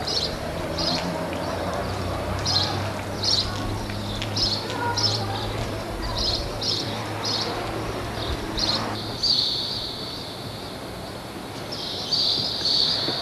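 Birds chirping in short high calls, about one or two a second, giving way about nine seconds in to a continuous high trill. A low steady hum runs underneath until then.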